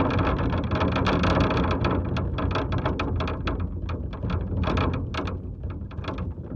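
Factory machinery running: a steady low rumble with dense, rapid clanking and rattling on top, slowly fading toward the end.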